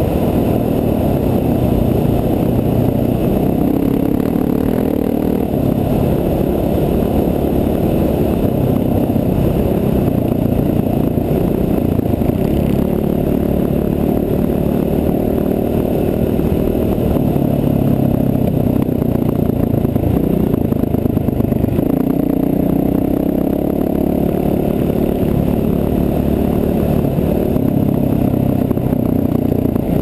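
Dual-sport motorcycle engine running at riding speed on a dirt track, its pitch rising and falling a little with the throttle, with rattling over the gravel.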